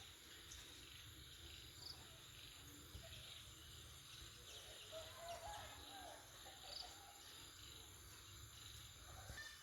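Faint farmyard ambience: a steady high insect-like hiss with two short high chirps, and a soft wavering call about five seconds in.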